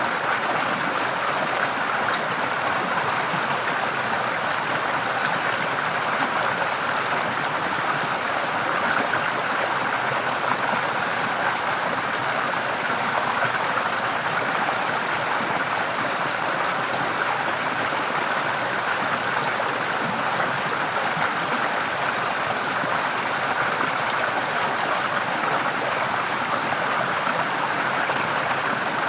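Water flowing in a stream, a steady, unbroken rush.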